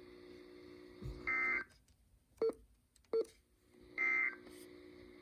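NOAA Weather Radio SAME end-of-message data bursts: several short, buzzy bursts of two-tone digital data about a second apart, the signal that the alert broadcast is over. A faint low hum sits between the bursts.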